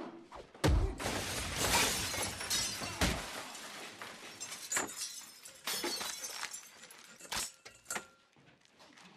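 A heavy impact, then glass shattering and crashing for about two and a half seconds, followed by several separate sharp knocks as the fight goes on.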